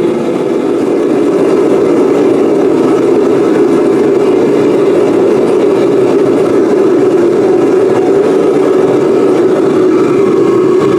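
Foundry furnace burner running at 20 psi gas pressure: a loud, steady roar like a jet engine, during the furnace's first firing to heat-cure its ceramic coating.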